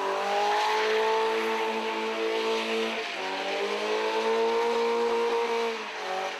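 BMW engine held at high revs during a smoky burnout, the rear tyres spinning and screeching on the tarmac. The revs dip briefly about three seconds in, then drop near the end.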